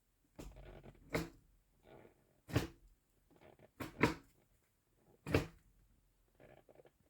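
A series of sharp knocks and clunks, about seven spread unevenly over several seconds, with softer scraping and rustling between them, like hard parts being handled or moved.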